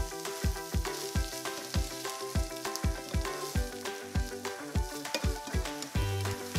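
Diced bell pepper, carrot and onion sizzling in oil in a frying pan as they are stirred with a wooden spatula, over background music with a steady beat.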